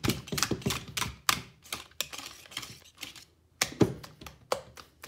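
A whisk and spatula clattering and scraping against a mixing bowl as a thick pudding and cream-cheese mixture is stirred: an irregular run of sharp clicks and knocks, several a second, with a brief lull a little after three seconds and a louder knock just before four.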